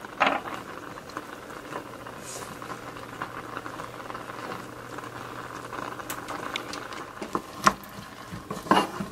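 A pot of lentils and diced vegetables simmering on the stove, bubbling and crackling steadily, with a soft knock just after the start. Near the end a wooden spoon starts stirring, knocking a few times against the pan.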